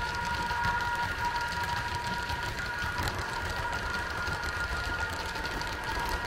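Model container train running on a Märklin layout: the wagons roll over the track with a low rumble and light clicking, over a steady high-pitched motor whine.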